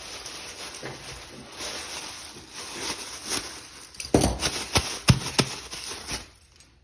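Metal handcuffs being handled, with a light rattle and then a quick run of sharp metallic clicks about four seconds in.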